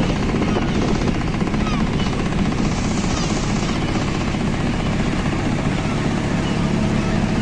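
A motor engine runs with a steady, loud drone and a fast low pulse. Faint bird calls rise and fall over it, strongest about three seconds in.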